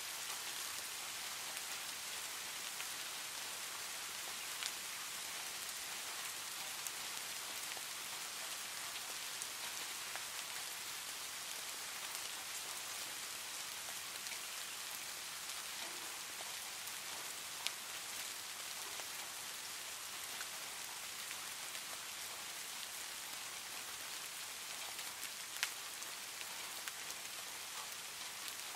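Steady rain ambience, an even hiss of falling rain, with a few faint ticks now and then.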